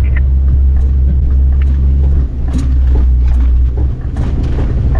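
A vehicle driving over a rough, corrugated dirt and sand track, heard from inside the cabin: a steady low rumble with scattered knocks and rattles as it is shaken about. The rumble eases briefly about two seconds in and again near the end.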